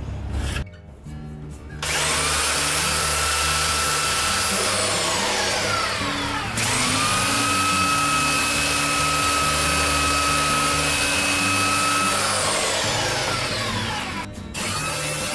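Electric sander spinning up with a high whine, running steadily, then winding down, three times over. It starts about two seconds in, restarts just before the middle, and starts again near the end. Background music plays underneath.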